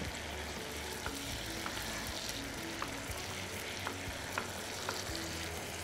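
Steady sizzle of food frying in a pan over high heat, with light irregular taps of a knife on a wooden cutting board as tomatoes are diced.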